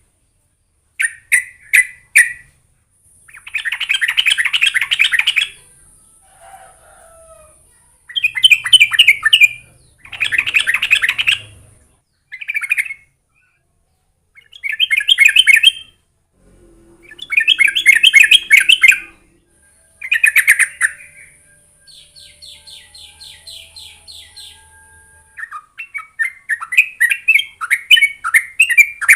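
Yellow-vented bulbul (trucukan) song: short, bubbly chattering phrases repeated every couple of seconds, with a quicker run of notes near the end. A steady high hiss sounds behind some of the phrases.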